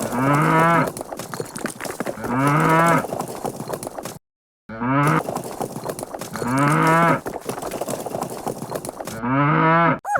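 A cow mooing, five long moos about two and a half seconds apart, the calls nearly identical in shape. The sound cuts out briefly a little after four seconds.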